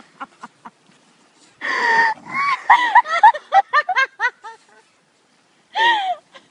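High-pitched, squealing laughter: a drawn-out squeal, then a quick run of about ten short bursts, and one more squeal near the end.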